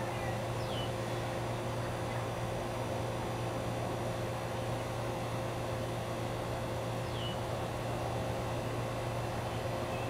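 A steady low hum over a noisy background, with two brief high chirps, one about a second in and another some six seconds later.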